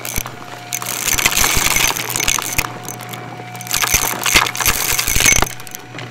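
Shark Navigator upright vacuum running with a steady motor hum while it sucks up crunchy debris from the floor. There are two passes of dense crackling and rattling, one about a second in and one near the four-second mark, as the bits are pulled in through the head and hose.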